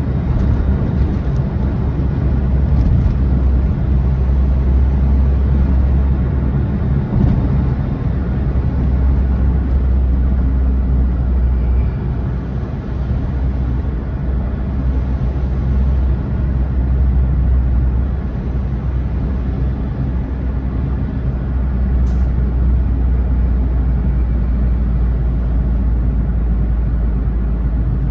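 Smart Fortwo on the move: a steady, loud low rumble from engine and road, with small dips and rises in level.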